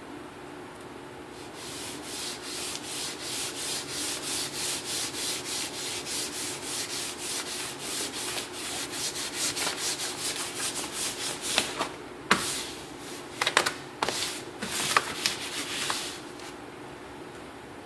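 Gloved hands rubbing back and forth over a sheet of paper laid on tint film: a rhythmic swishing of about two or three strokes a second, with a few louder, sharper crinkles near the end.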